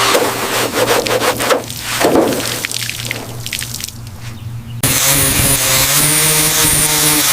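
Rasping scraping and rubbing strokes with clicks, typical of hand rust-scraping or sanding on bodywork. About five seconds in it cuts abruptly to a steady humming machine tone.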